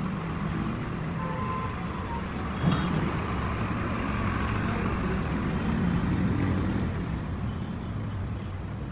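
Road traffic running past, with the steady low rumble of vehicle engines, including trucks. A single sharp knock stands out a little under three seconds in.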